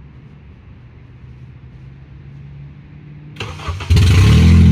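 A 2004 Honda CR-V's four-cylinder engine cranked by the starter about three and a half seconds in, catching half a second later and running loud. The catalytic converter has been stolen, leaving the exhaust unmuffled.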